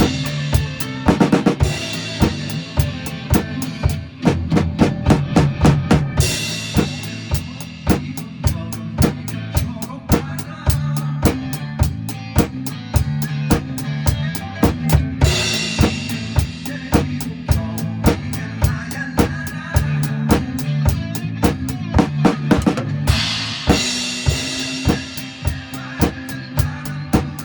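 Drum kit played in a steady beat along to a pop backing track, bass drum and snare keeping time, with cymbal crashes about the start and again roughly 6, 15 and 24 seconds in marking the phrases.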